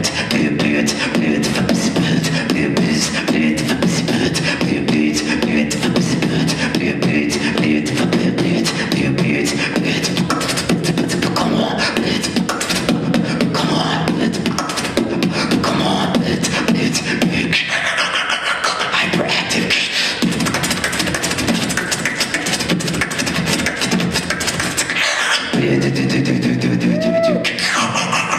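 A live beatbox solo: one man making rapid drum-like kicks, snares and hi-hat clicks with his mouth, mixed with pitched vocal sounds, in a steady fast rhythm. Near the end a short rising-and-falling vocal glide.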